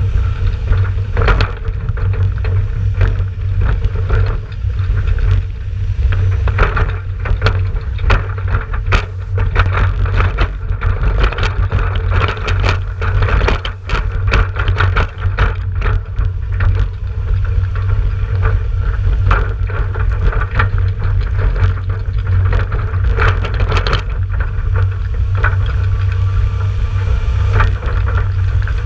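Empty farm trailer rattling and knocking over a wet road as it is towed, with the Ford 7000 tractor's diesel engine running steadily ahead. A heavy rumble of wind and road runs under it on the trailer-mounted microphone.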